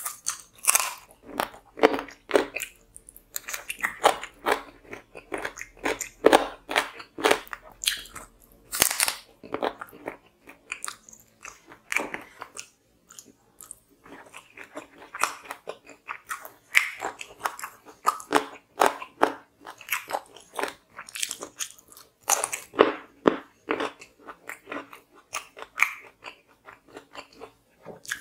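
Close-miked mouth sounds of a man eating chicken curry with egg by hand: continual irregular chewing, biting and wet clicking crunches.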